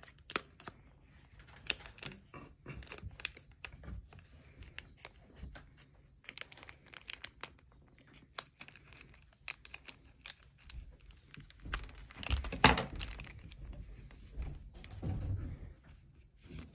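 Foil wrapper of a Pokémon card booster pack crinkling and being snipped open with scissors: a run of short crackles and snaps, loudest about two thirds of the way through. Cards are then slid out of the opened pack.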